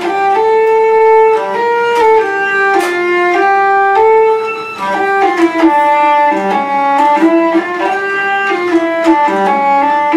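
Hurdy-gurdy played: the cranked wheel bows the strings while the keys stop out a melody of quick notes stepping up and down.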